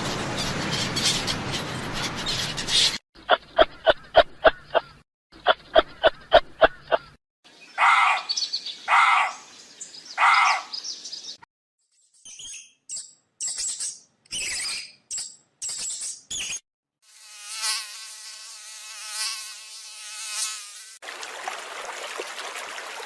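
A run of short, separate animal sound clips: fast pulsing calls, then three longer calls, then short high chirps, then a flying insect's steady buzz with a stack of even tones, ending on a noisy rubbing sound.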